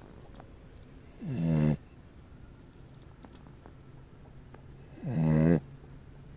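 Dog snoring: two loud, pitched snores about four seconds apart, each lasting about half a second and rising in pitch as it begins, with quiet breathing between them.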